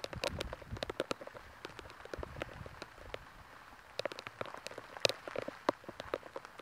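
Rain falling, heard as many irregular sharp drop taps, several a second, thinning out for a while between about two and four seconds in before picking up again.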